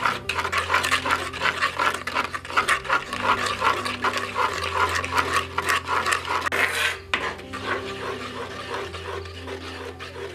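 A spoon stirring a runny mixture in an earthenware bowl: quick, repeated scraping and clinking strokes against the bowl, which stop about seven seconds in. Background music with long held notes plays underneath.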